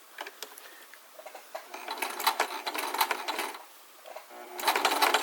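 Domestic sewing machine stitching through a fabric bag handle in two short runs, stopping briefly about three and a half seconds in before starting again; a few light clicks come before the first run.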